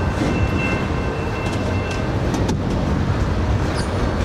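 Double-stack container well cars of a freight train rolling past, a steady rumble with scattered clicks from the wheels. A faint thin high whine sounds during the first half, then fades.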